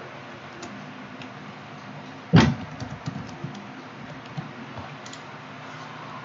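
One dull knock or thump a little over two seconds in, the loudest thing here, with a few faint scattered clicks before and after it over a steady low hum.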